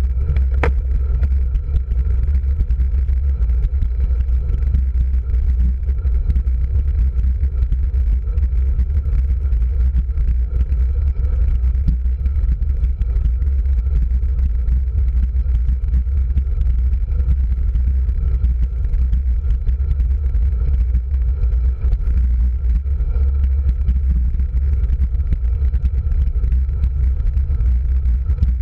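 Wind and road rumble on the microphone of a handlebar-mounted camera on a moving road bike: a loud, steady low rumble, with one sharp click about half a second in.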